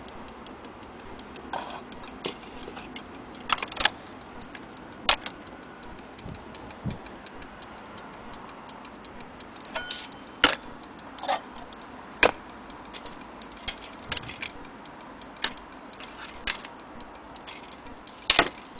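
Vintage French brass cage clock movement ticking steadily, with louder, irregular sharp metallic clinks and knocks from the brass case and parts being handled and set down.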